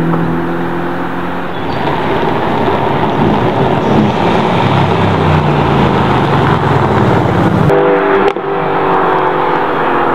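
Sports cars accelerating hard. A Ferrari SF90 Stradale pulls away, then a Mercedes-AMG GT R's twin-turbo V8 revs and accelerates, its engine note climbing through the gears. There is a brief break partway through.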